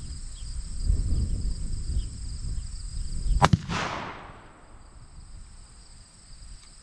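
A 6.5 Grendel rifle fires a single shot about three and a half seconds in: one sharp crack followed by a short echo that dies away within about a second.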